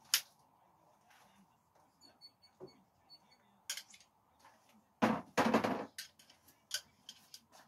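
Metal screwdrivers clinking and rattling together as they are carried and sorted in the hands. There is a sharp clack just after the start, a longer, louder rattle about five seconds in, then scattered light clicks.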